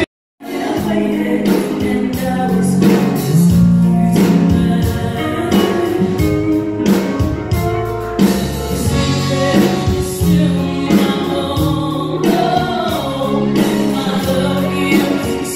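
Live stage-show music: voices singing over a band, loud and full. It cuts in after a brief silence at the very start.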